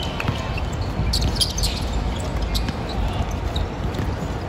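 A ball bouncing during play on a court, with scattered short sharp squeaks and knocks over a steady low rumble.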